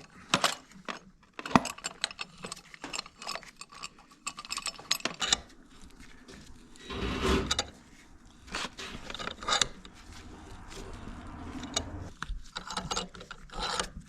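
Metal tools and brake parts clicking and clinking as new pads are fitted to a side-by-side's brake caliper, in scattered short knocks, with a longer, louder clatter about seven seconds in.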